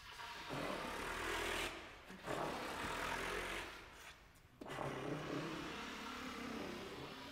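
Saxophone and clarinet played with breathy air sounds, mostly unpitched rushing air through the instruments, in three swells separated by short breaks, with faint low pitched tones under the last one.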